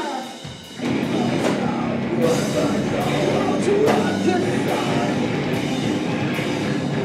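Live heavy rock band playing: distorted electric guitars, bass and drum kit. The band drops out briefly at the start, then crashes back in about a second in and plays on at full volume.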